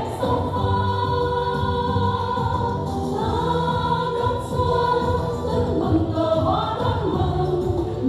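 A group of women singing together through handheld microphones over instrumental backing music, holding long notes.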